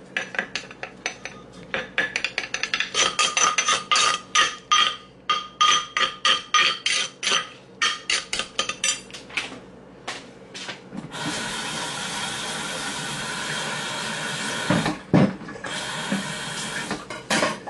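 Metal spoon clinking and scraping against the inside of a mortar, several quick strikes a second, as a pounded salad is scooped out. After about ten seconds the clinking gives way to a steady hiss lasting several seconds, broken by a couple of thumps.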